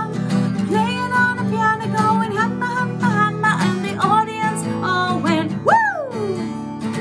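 Woman singing a children's song to her own strummed acoustic guitar, with one big vocal swoop that rises and then slides down near the end.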